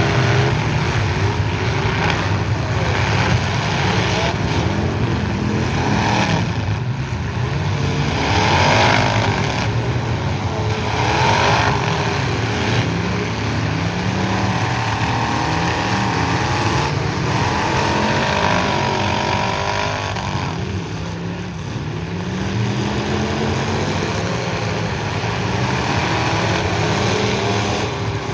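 Several stock pickup trucks' engines revving up and down in a demolition derby heat, their pitches rising and falling over one another, with a few loud surges of crashing metal.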